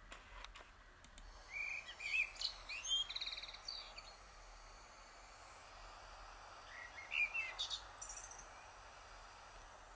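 Garden songbirds singing in short chirping phrases and quick trills, in two bouts a couple of seconds in and again about seven seconds in, over a steady outdoor hiss.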